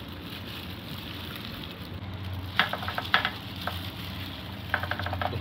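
Wet squelching and rustling of kimchi being mixed by a gloved hand in red chili paste, over a steady low hum, with two short runs of quick clicks and crinkles partway through and near the end.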